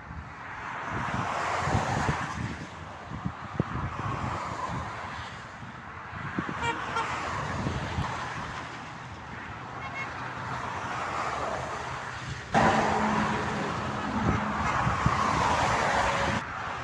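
Motorway traffic: vehicles passing one after another, their tyre and engine noise swelling and fading. The sound jumps abruptly louder about twelve seconds in, then drops just as suddenly near the end.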